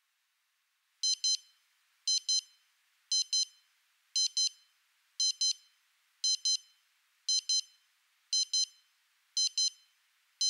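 Digital alarm clock built into a SEGA Toys HomeStar Travel home planetarium going off: high-pitched electronic double beeps, one pair about every second, starting about a second in. The alarm is sounding because the set time of 7:00 has been reached.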